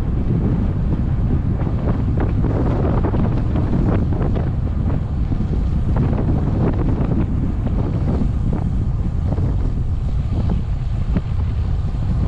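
Steady wind buffeting the microphone of a camera moving fast down a road, a dense low rumble with faint scattered knocks.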